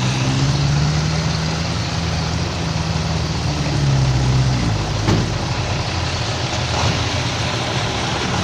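Truck engine running steadily, its low note shifting down partway through.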